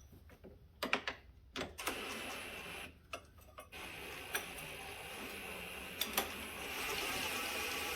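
Power impact gun running a shock absorber mounting bolt out of an ATV's suspension: a few clicks, then a steady rapid rattling run from about two seconds in, with a brief pause a second later.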